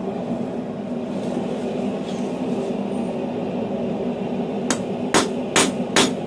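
Hand hammer striking a glowing hot steel bar on a steel anvil: four sharp ringing blows, about two a second, starting near the end, over a steady low hum.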